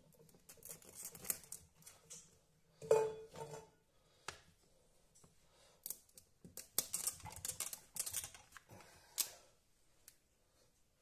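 A kitchen knife scoring the hard shells of raw chestnuts on a wooden cutting board: bursts of crisp cutting clicks and scrapes, with a louder knock about three seconds in.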